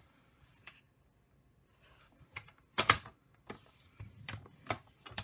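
Paper trimmer clicking and knocking as cardstock is set against its rail and the scoring-blade carriage is handled: about seven separate sharp clicks, the loudest about three seconds in.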